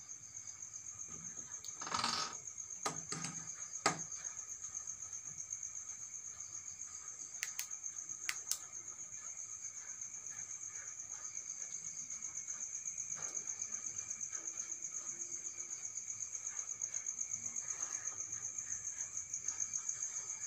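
Crickets chirping in a steady, high, fast-pulsing trill. A few sharp clicks and knocks break in about two to four seconds in and again near eight seconds.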